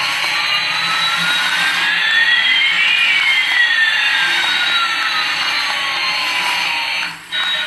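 Jet-like whooshing hiss with two whistling tones, one rising and one falling, crossing about halfway through; it drops out briefly near the end.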